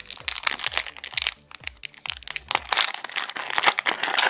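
Foil trading-card booster pack wrapper crinkling and crackling as it is handled, a rapid, irregular run of small crackles.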